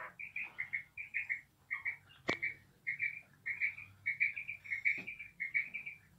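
Female quail calling: short high notes in quick clusters of two to four, repeated over and over. A sharp click a little over two seconds in, and a fainter one near five seconds.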